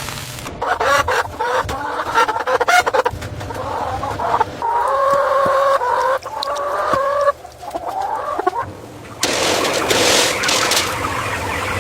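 Chickens clucking and calling, with long drawn-out calls in the middle. A loud burst of hissing noise takes over for the last couple of seconds.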